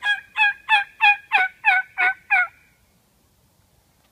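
A wild-turkey call made by a hunter with his mouth: a fast series of loud pitched notes, about three a second, that stops about two and a half seconds in.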